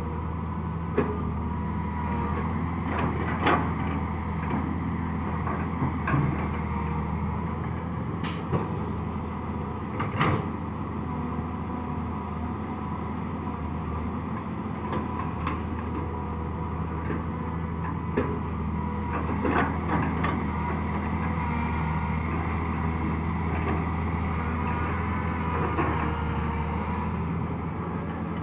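Diesel engine of a 200D tracked excavator running steadily under load as it digs soil and loads a dump truck, with scattered sharp clanks and knocks from the bucket and boom; the sharpest come about 8 and 10 seconds in.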